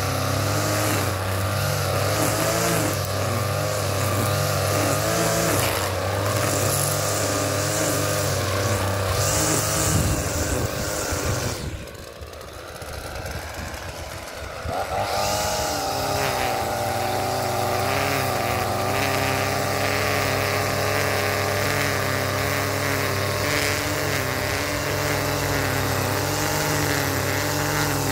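Gas string trimmer engine running steadily at high throttle. About twelve seconds in, the throttle is let off to idle for roughly three seconds, then the engine revs back up and runs steady again.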